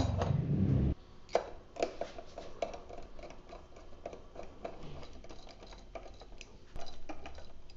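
Small irregular metal clicks and taps as a metal VESA bracket plate and its spigot adapter are handled and fastened on the back of a monitor, with one sharper knock about a second and a half in. A low steady hum at the start cuts off abruptly about a second in.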